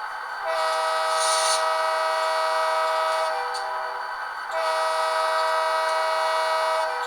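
Model diesel locomotive's multi-chime horn played by an ESU LokSound sound decoder through dual Zimo speakers. It sounds two long blasts of a steady chord, with a short break about four and a half seconds in.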